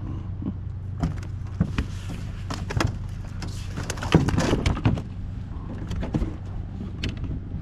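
Clicks, knocks and rattles of fishing gear being handled on a plastic kayak, busiest in the middle, over a steady low hum.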